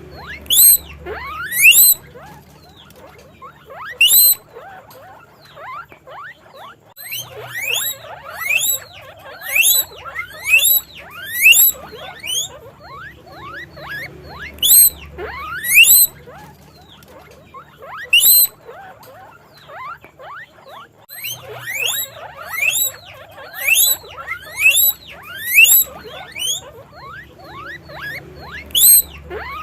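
Guinea pig wheeking: loud, high squeals that each rise sharply in pitch, repeated about once a second in runs with short pauses between them.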